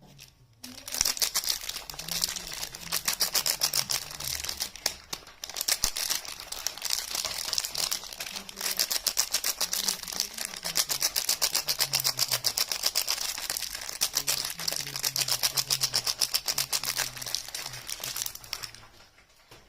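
Soap packaging being handled: a fast, even run of crisp clicking and crinkling that starts about a second in and stops shortly before the end.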